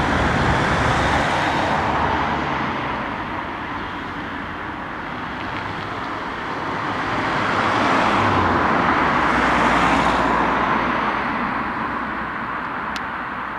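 Road traffic: cars passing one after another, the sound of one fading over the first few seconds and another swelling and passing about eight to ten seconds in.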